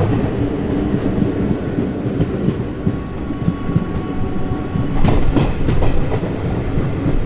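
Passenger train running along the track, its wheels clattering over the rails with a steady rumble; the knocks come thicker and louder about five seconds in.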